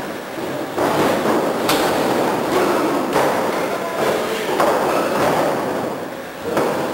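Several dull thumps of wrestlers striking and stepping on the ring, about a second or so apart, over a steady rumbling background noise.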